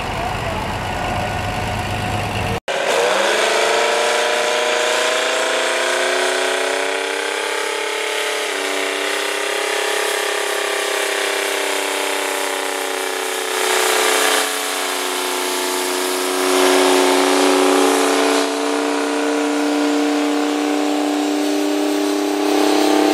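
Rite 750 Earthquake tractor's Detroit Diesel engine working hard under load as it pulls a wide field implement. Its pitch slides down over a few seconds as it lugs, then holds steady. It is preceded by a couple of seconds of another big articulated tractor's engine, which cuts off abruptly.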